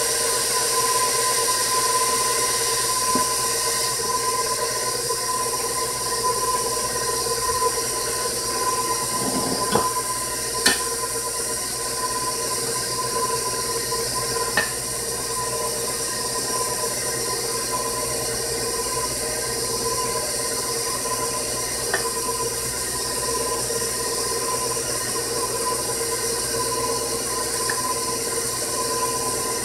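Stand mixer running steadily, its motor whine holding one pitch as the beater turns through thick pound cake batter while sifted cake flour is added. A few light knocks sound over the hum.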